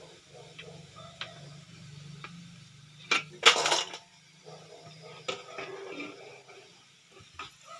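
Metal clinks and knocks against a stainless steel food container, with a louder clatter about three seconds in, over a low steady hum.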